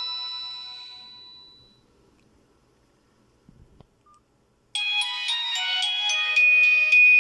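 Fly SX220 mobile phone ringtones playing through the phone's loudspeaker. A chime-like ringtone dies away over the first two seconds. After a near-silent pause with a click and a short beep, a new ringtone starts suddenly and plays a fast melody of many quick notes.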